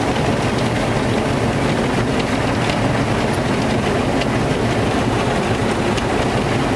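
Automatic drive-through car wash at work on a minivan, heard from inside the cabin: rotating cloth brushes scrubbing across the windshield and body while water sprays the glass, a loud, steady rumble and rush.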